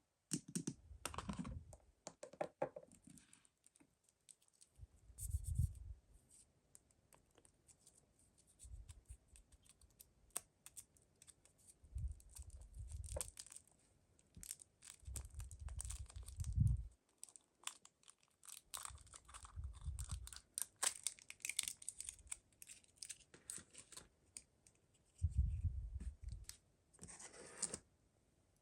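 Hands opening mystery toy packaging: plastic and foil wrappers tearing and crinkling, with small clicks and taps and several soft low thumps from handling.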